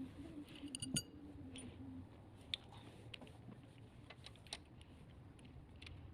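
Faint, irregular small clicks and taps, with a louder click about a second in and a wavering hum over the first two seconds.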